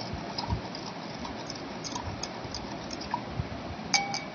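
Metal spoon stirring in a stemmed glass of water, with light, scattered clinks against the glass. Near the end one louder clink makes the glass ring briefly.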